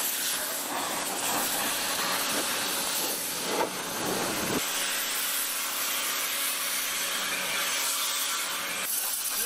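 Pressure washer spraying a steady, hissing jet of water over sheet-metal fluorescent light fixture housings, blasting out dirt and mouse droppings.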